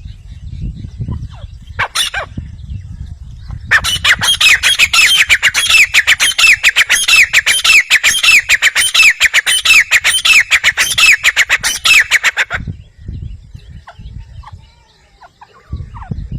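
Grey francolin (teetar) calling: a fast, loud run of sharp repeated notes lasting about eight seconds, starting about four seconds in and stopping abruptly. Before and after it there is only a low rumble with a few faint calls.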